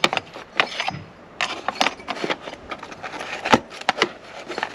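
Small items being wrapped up and stowed: irregular rustling, scraping and light clicks of hard pieces being handled, with a sharper knock about three and a half seconds in.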